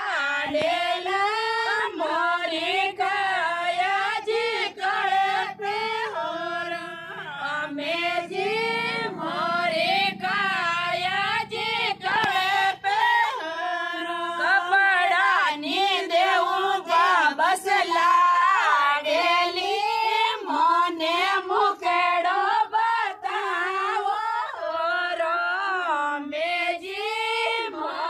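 A group of women singing a Rajasthani devotional folk song (bhajan) together, unaccompanied, the melody wavering and ornamented.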